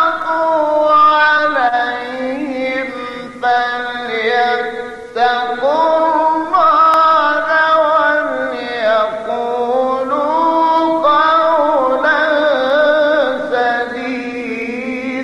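A man's solo melodic Quran recitation in maqam Hijaz: one voice sings long, ornamented phrases, holding and bending each note, with short breaths between phrases.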